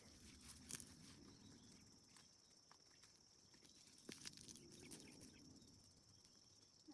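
Near silence: faint outdoor room tone with a few soft ticks and a faint steady high-pitched tone that cuts off at the end.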